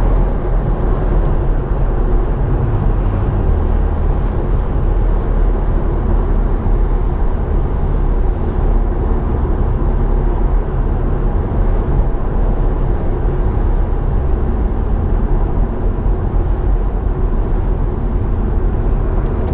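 BMW M140i's turbocharged 3.0-litre straight-six with an M Performance exhaust, heard from inside the cabin while driving at a fairly steady pace: a steady low engine and exhaust note.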